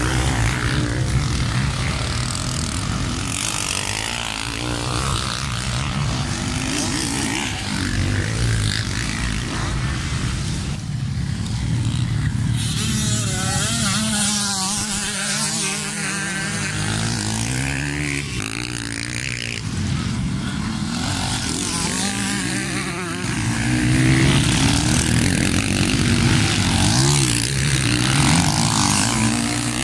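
Several motocross dirt bikes racing, their engines revving up and down with throttle and gear changes. The sound gets louder about three quarters of the way through, as bikes power through a corner close by.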